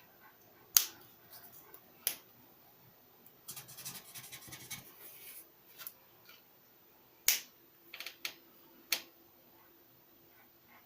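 Sharp plastic clicks of alcohol ink markers being uncapped, recapped and put down, several spaced seconds apart, with a marker tip scratching across paper for a couple of seconds in the middle.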